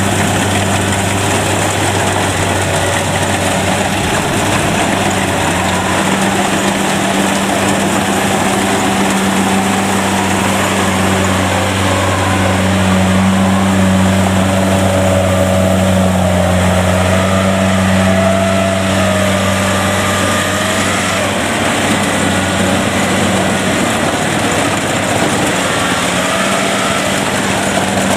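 Kubota DC70 rice combine harvester running steadily while harvesting: a continuous, even engine and machinery drone that holds the same level throughout.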